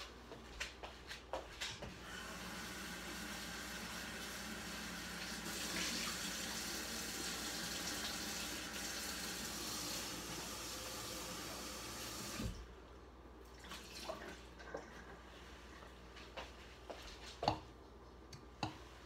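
Kitchen tap running into a sink for about ten seconds, then shut off sharply. A few light knocks and clatters of kitchenware follow.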